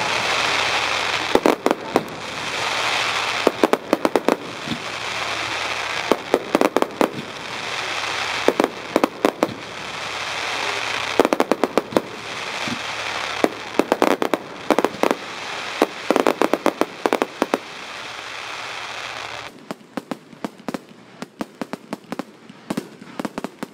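Aerial fireworks going off in quick volleys of sharp bangs and crackles, a cluster every two to three seconds over a steady hiss. Near the end the hiss drops away and only scattered pops remain.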